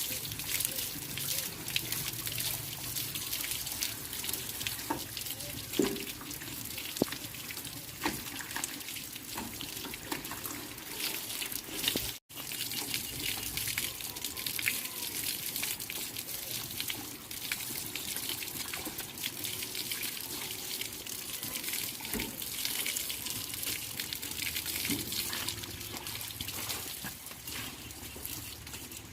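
Running water, a steady splashing with a few small knocks, breaking off for a moment about twelve seconds in.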